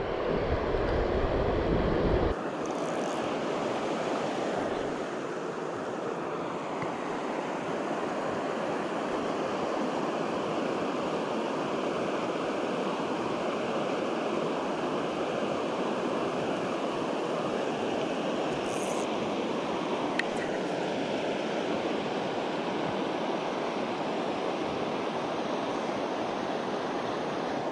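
Steady rush of flowing river water, with wind rumbling on the microphone for the first two seconds or so.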